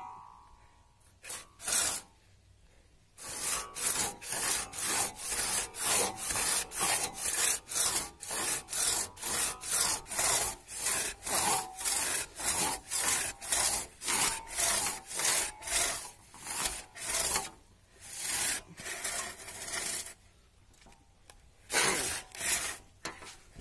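A roughly 100-year-old crosscut saw, freshly restored, cutting through a log by hand in steady back-and-forth strokes, about two a second. The sawing stops a few seconds before the end, then comes back for a few last strokes.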